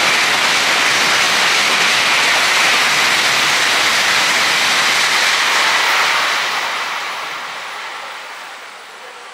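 Tokaido Shinkansen N700-series bullet train passing at high speed: a loud, steady rushing noise that fades away over the last three seconds as the train goes by.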